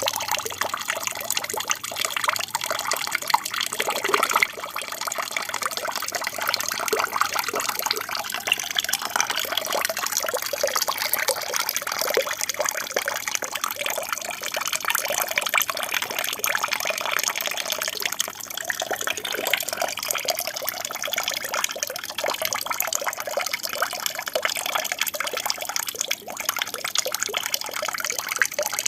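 Water falling and splashing steadily from an aquarium waterfall, a continuous trickling, gushing rush.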